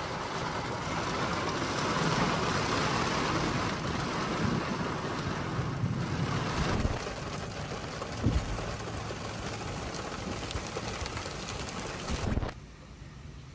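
Driving noise inside the cabin of a Peugeot 3008 Hybrid4 plug-in hybrid SUV on a sport-mode acceleration test run: a steady rush of drivetrain, tyre and wind noise, swelling over the first couple of seconds and loudest in the first half, with a couple of short knocks. It drops away suddenly near the end.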